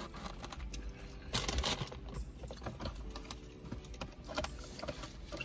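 Eating sounds: light, scattered clicks and scrapes of a plastic fork in foam takeout bowls, with a short burst of rustling about a second and a half in.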